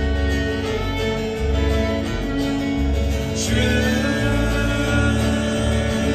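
A string band playing live: strummed acoustic guitar, upright bass and fiddle, with voices singing over them.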